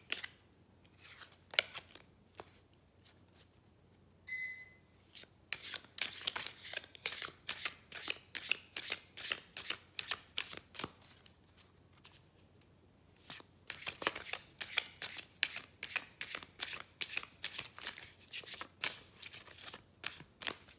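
Tarot cards being shuffled by hand: a run of quick card strokes, about three a second, pausing briefly in the middle before starting again.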